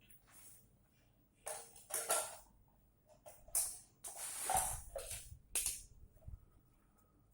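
A series of short scraping and rustling noises, about seven of them, irregularly spaced, with a longer cluster about four to five seconds in.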